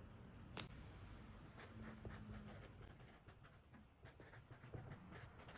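Near silence with faint scratching and soft ticks, and one slightly louder click about half a second in.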